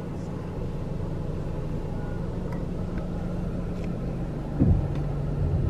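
Vehicle engine running steadily, heard from inside a car, with a brief louder swell about four and a half seconds in.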